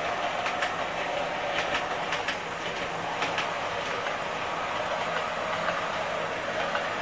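A KATO HO-scale KiHa 58/KiHa 65 diesel railcar model running along the track, its drive making a steady whirr while the wheels click over rail joints, in clusters about two and three seconds in. The used model has been serviced and runs steadily.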